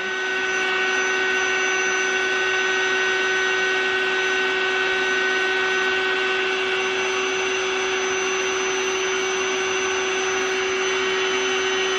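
Electric air pump of a Mattress Genie (Power Bed) inflatable bed wedge running steadily as it inflates the wedge under a mattress. It is a loud, even motor drone with a constant whine.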